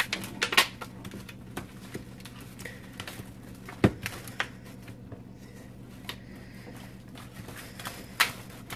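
Crinkling and clicking of the plastic packaging of a ready-made graham cracker pie crust as it is handled, scattered sharp clicks with a cluster in the first second and the loudest one just before four seconds in. A faint steady hum lies underneath.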